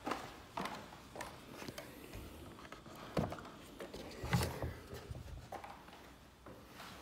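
A few irregular knocks and thuds on the timber boards of a wooden shed, with a heavier, deeper thud about four and a half seconds in.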